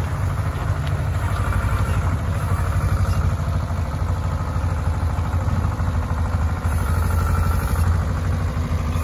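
Heavy diesel engine running steadily with a low, even pulse as a multi-axle modular trailer carrying a steel bridge beam rolls slowly past.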